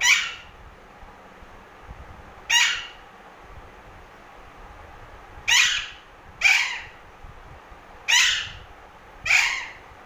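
A green parakeet giving six loud squawks, each about half a second long and spaced one to three seconds apart.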